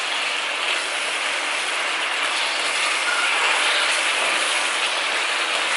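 Squid pieces sizzling steadily in melted butter with garlic and onion in a nonstick frying pan as they are stirred with a plastic slotted spatula.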